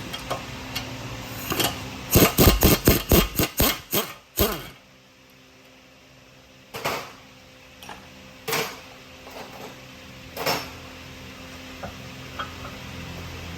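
Hammer blows on metal during front suspension work: a quick run of about eight blows, roughly three a second, then three single blows spaced a couple of seconds apart, over a low steady workshop hum.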